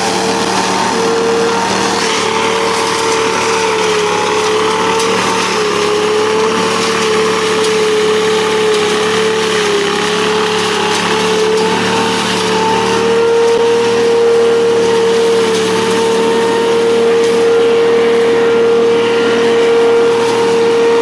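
Truck-mounted leaf vacuum running steadily, its gas engine and fan giving a constant loud whine over a rushing of air as leaves are sucked up through the wide hose. The whine wavers slightly and grows a little louder in the second half.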